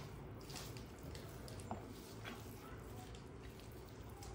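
Faint squelching of hands kneading rice with mashed cauliflower-leaf paste, with a few soft clicks scattered through.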